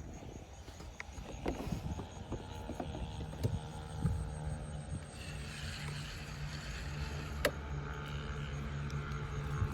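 A motor running steadily, its low hum coming in about three and a half seconds in, over a low rumble of wind on the microphone, with a few sharp clicks.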